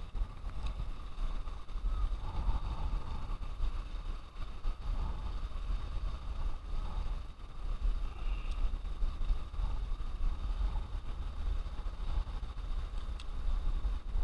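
Motorboat engines running as boats pass through the channel, a steady drone under a gusty low rumble of wind on the microphone.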